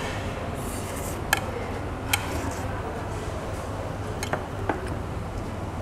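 Chewing on a mouthful of grilled beef, with four short, sharp clicks of chopsticks over a steady low hum.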